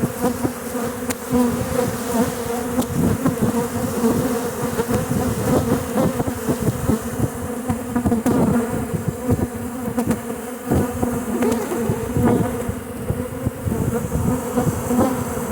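A swarm of honey bees buzzing in and around a swarm trap: a loud, dense, steady hum, with single bees repeatedly zipping close past.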